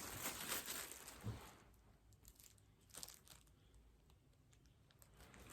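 Plastic takeout packaging crinkling and rustling as it is handled and opened, mostly in the first second and a half, then a few faint clicks.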